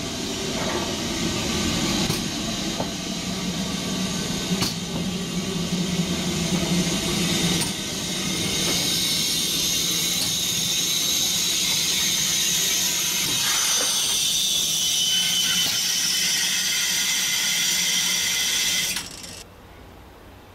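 GWR Hall class steam locomotive standing in steam. In the first several seconds there is a low steady hum with a few sharp metallic clanks, then a steady hiss of escaping steam that cuts off sharply about a second before the end.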